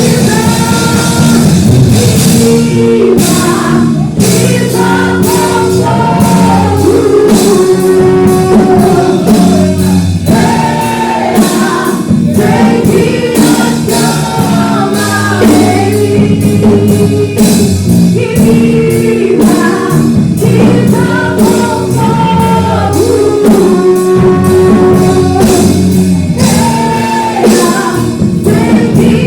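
Church praise band playing a worship song, with voices singing held notes over instruments and a steady drum beat.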